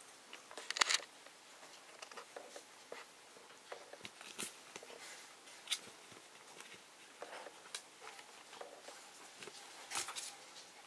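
Maltese puppies moving about on a hard floor and in a bedding-lined cardboard box: scattered light taps and scuffles of small paws, with a louder scuffle about a second in and another near the end.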